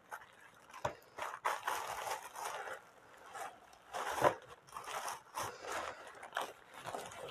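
Paper and small items rustling, crinkling and scraping as someone rummages through a stash of paper cake toppers, with irregular crinkles and light knocks, the loudest about four seconds in.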